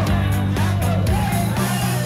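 Background music with a heavy, pulsing bass line.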